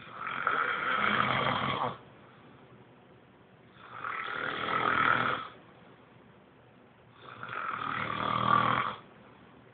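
Snoring in a slow, regular rhythm: three rasping snores about three and a half seconds apart, each lasting about two seconds, swelling and then cutting off abruptly, with quiet breathing between them.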